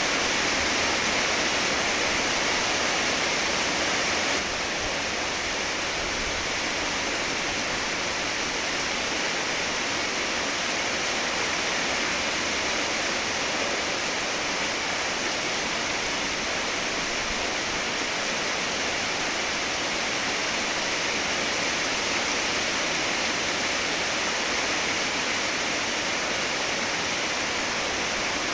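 Rain falling steadily, a dense even hiss that drops slightly in level about four seconds in.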